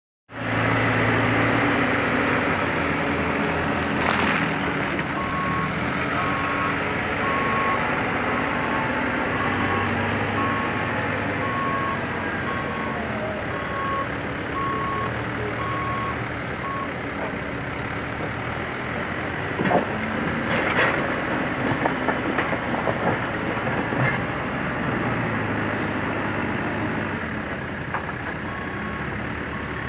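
New Holland backhoe loader's diesel engine running steadily as the machine works, with its reversing alarm beeping about once a second for a long stretch and again near the end. A few sharp metallic clanks come a little past the middle.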